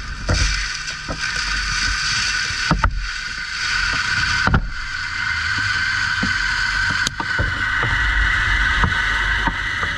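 Caterpillar 299D3 compact track loader's diesel engine running steadily under work, with a few sharp knocks and clanks from the machine about a third, halfway and two thirds of the way through.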